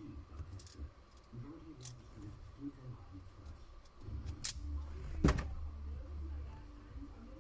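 Faint handling noise, then two sharp clicks a little under a second apart about halfway in: a small battery being touched to loose speaker wires, making a car tweeter pop.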